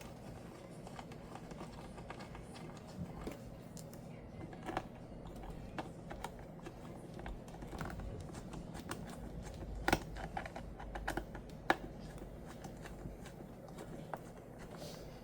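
Faint, scattered light clicks and taps of a precision screwdriver and small screws being worked into a MacBook's case, with two sharper taps about ten and twelve seconds in.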